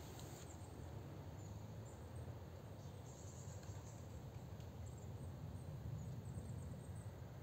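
Faint outdoor ambience: a steady low rumble with scattered faint, high, short chirps.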